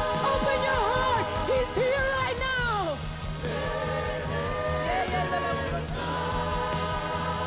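Live church worship music: a singer's voice winds and glides over held band chords, sweeps down and drops out about three seconds in, leaving the sustained chords over a steady bass.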